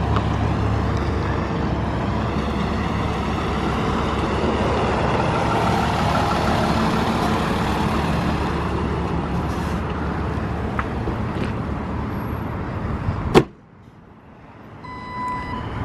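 Flatbed tow truck's engine running as it drives slowly past close by, a steady rumble with road noise. It cuts off suddenly near the end, and then the truck's reversing alarm starts beeping.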